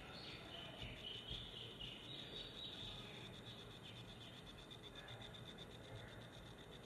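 Quiet outdoor ambience with a faint, high-pitched chirping that is strongest in the first few seconds.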